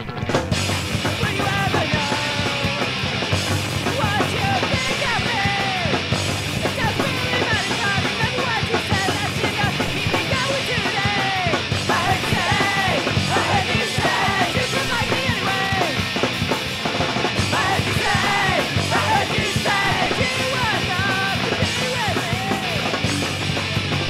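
Punk rock song played loud by a band on electric guitar, bass and drums.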